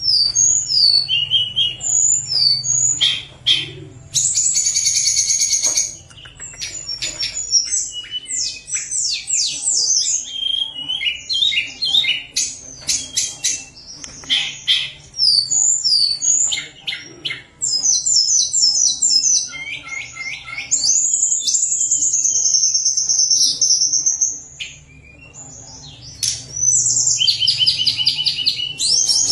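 A tledekan gunung songbird sings a continuous, varied song of quick whistled notes and fast rattling trills, with one long wavering whistle about two-thirds of the way through.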